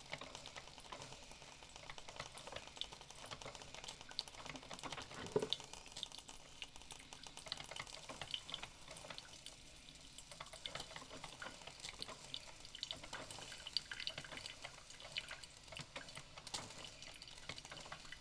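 Coffee maker brewing: water sputtering and dripping, with a steady faint hiss and many irregular small crackles and clicks.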